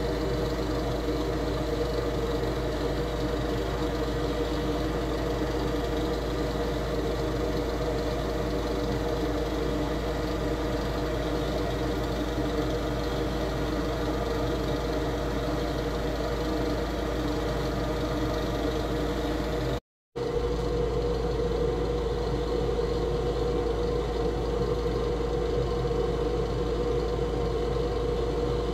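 A steady, unchanging mechanical hum with a few held tones, cutting out for a moment about twenty seconds in and then carrying on as before.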